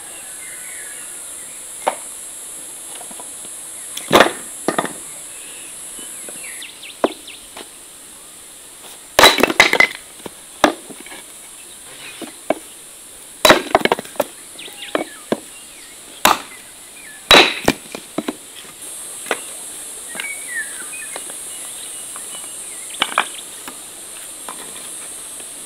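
Hatchet splitting firewood on a wooden chopping stump: a handful of sharp, loud chops of the blade into the wood, irregularly spaced, with lighter knocks of wood between. A steady high insect drone runs underneath.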